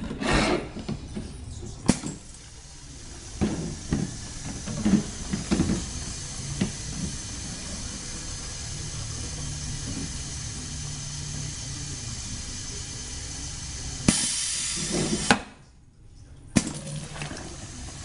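Pneumatic piston liquid filling machine dosing soap into plastic bottles in quick shots: sharp clacks of the mechanism and of bottles set under the nozzle, a steady running sound between them, and a loud burst of compressed-air hiss lasting about a second, a little past two-thirds of the way through.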